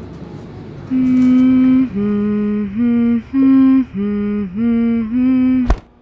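A person humming a slow tune of about seven held notes that step up and down, cut off by a sharp click near the end.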